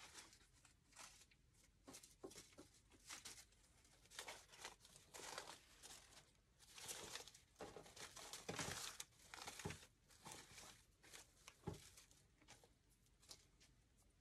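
Faint, irregular rustling and crinkling of artificial geranium stems and leaves being pushed into a grapevine wreath, with a few sharper clicks in the second half.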